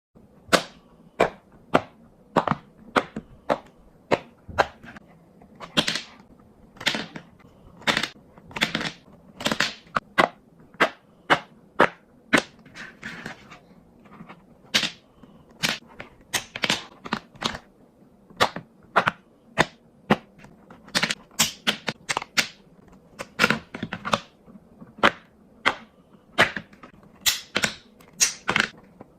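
A long series of sharp, crisp clicks or snaps at an uneven pace, about one to two a second, some louder than others.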